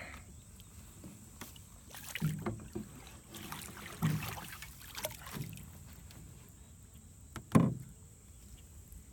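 A quahog rake being worked over the side of a small aluminium boat, dredging muck and weed from the pond bottom: water splashing and dripping, with a few dull knocks against the boat, the loudest near the end.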